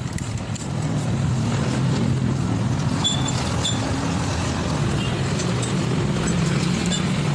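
An engine idling steadily, with a couple of faint light clinks about three seconds in.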